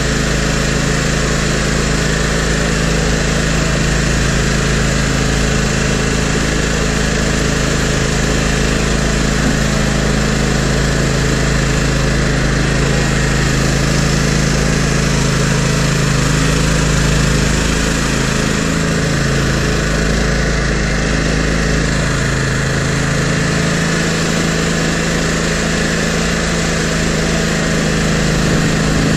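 Toro GrandStand MultiForce stand-on mower's engine running steadily while the machine pushes snow with its front plow blade. Its pitch wavers and shifts a little about two-thirds of the way through.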